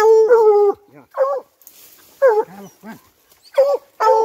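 American foxhound baying at a burrow where a paca has gone to ground: about six loud calls in quick succession, the first ones drawn out and the later ones shorter and broken.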